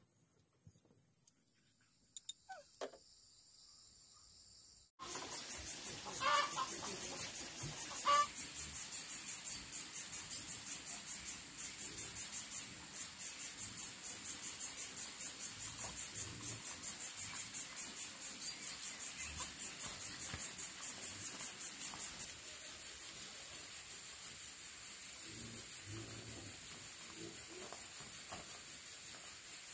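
Loud, high-pitched insect song in a steady rapid pulse, about four pulses a second. It starts abruptly about five seconds in and drops in level about 22 seconds in. Before it there is near silence with a few faint clicks.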